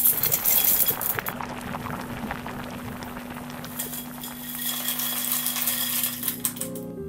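Dry farfalle pasta clattering as it is poured from a glass jar into a bowl, then pattering as it is tipped into a saucepan of boiling water, which hisses and bubbles. Soft music comes in near the end.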